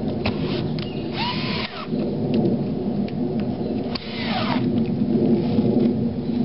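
Cordless drill running against a wooden 4x4 post, fastening plywood spacer pieces to it: a steady motor hum with two louder rasping bursts, about a second in and about four seconds in.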